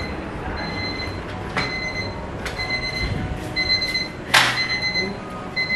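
Timer alarm beeping, one high beep about every second, signalling that the baking time is up. About four seconds in the oven door clacks open.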